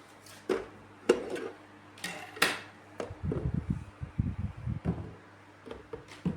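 A run of knocks, clicks and rattles, as of things being handled, set down and moved about, with a cluster of dull low thuds in the middle, over a steady low hum.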